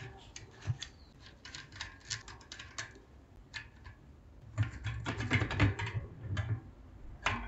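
Light metallic clicks and clinks of hand work on a bicycle cassette, as the lockring tool is taken off and the steel sprockets, wrapped in chain, are slid off the rear hub. The clicks are scattered at first and come thicker and with some clatter about two thirds of the way in.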